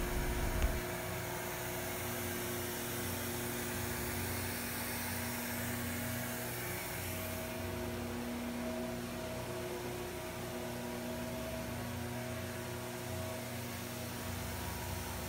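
Truck-mounted carpet-cleaning extraction unit running, a steady machine hum.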